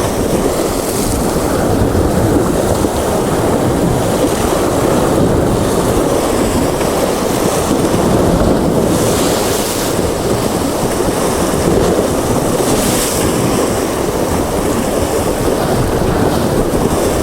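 Sea swell washing against the shore rocks with wind buffeting the microphone, a loud steady rush with two brief hissing surges, about nine and thirteen seconds in.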